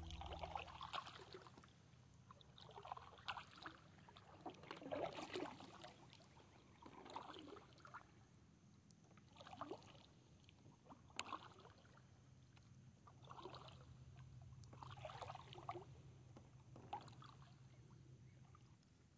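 Double-bladed kayak paddle dipping into calm water, a faint swish and splash about every two seconds as the strokes alternate sides.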